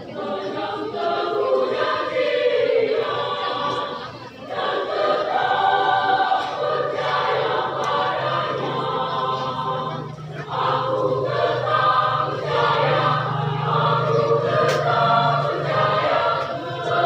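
Women's church choir singing in parts, with short breaks between phrases about four and ten seconds in.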